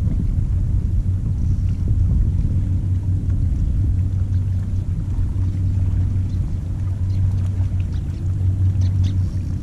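Steady low rumble with a faint hum running through it, even in loudness throughout.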